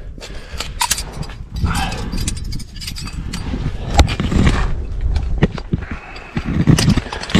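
A climber breathing hard and straining, with climbing gear clinking and knocking and scraping against sandstone. There are several sharp clacks, the loudest about four seconds in.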